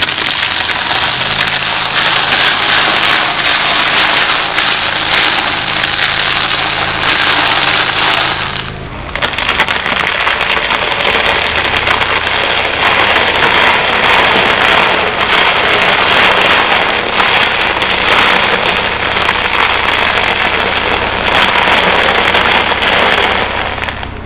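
Honda car tyre rolling slowly over stacks of dry krupuk crackers, crushing them in a long, loud run of dense crackling crunches. A low steady hum of the idling engine lies underneath for the first part, and the crunching dips briefly about nine seconds in.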